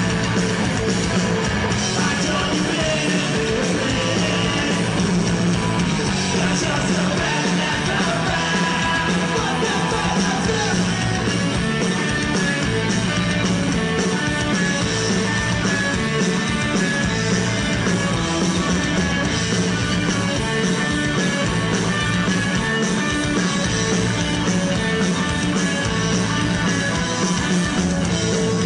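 Punk rock band playing a song live, loud and without a break: electric guitar and full band with a singer's vocals.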